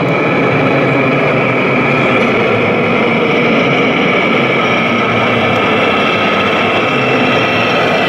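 Steady, loud heavy-truck diesel drone from a radio-controlled Scania tractor unit's engine-sound system as the model truck drives slowly.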